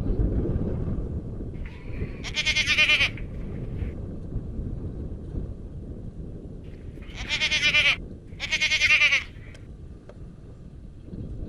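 Goat bleating three times, each call under a second long with a quick wavering quiver: one about two seconds in, then two close together past the middle.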